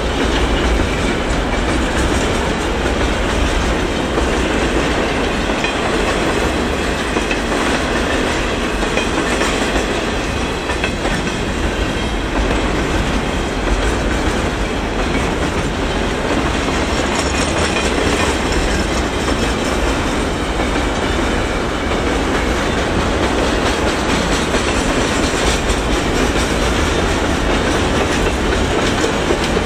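Double-stack intermodal well cars of a freight train rolling past: a loud, steady noise of steel wheels running on the rails, with a deep low rumble underneath.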